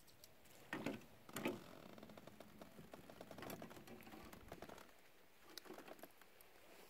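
Faint, irregular clicking and rustling, with two louder clicks about one and one and a half seconds in and a denser run of small clicks through the middle.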